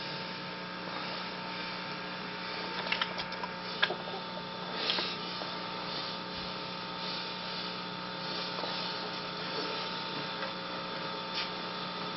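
Steady electrical hum, with a few faint clicks about three to four seconds in and a soft rustle near five seconds.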